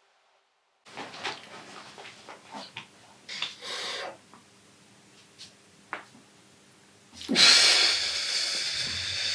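A man breathing hard and shifting about while flexing, with small clicks and rustles. About seven seconds in comes a long, loud, hissing exhale as he holds a pose.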